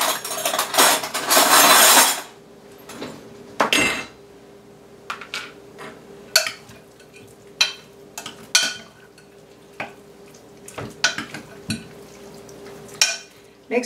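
Metal spoon clinking and scraping against a large glass measuring bowl while chicken strips are stirred through their marinade: a couple of seconds of dense scraping and rustling at the start, then scattered light clinks and knocks.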